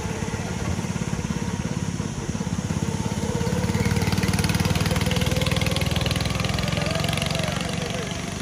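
Small go-kart engines buzzing on the track, one kart growing louder from about three and a half seconds in as it passes close, then fading away.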